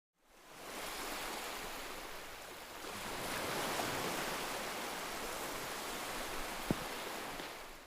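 Sea waves and rushing water, a steady wash of noise that fades in and fades out again near the end.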